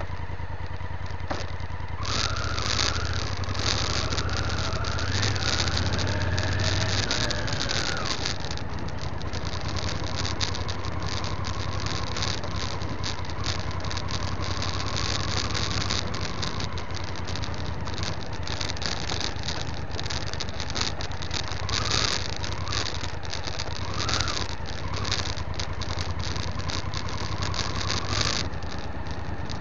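Motorcycle engine running while riding a gravel dirt road, with steady tyre-on-gravel noise and many small rattles and clicks. The engine pitch rises over the first several seconds and falls back, with brief rises again near the end.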